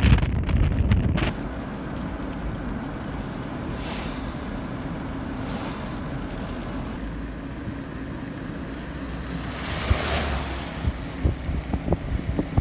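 Steady rushing of a river running high in flood. Wind buffets the microphone heavily for the first second or so and again in small thumps near the end, with a brief louder whoosh about ten seconds in.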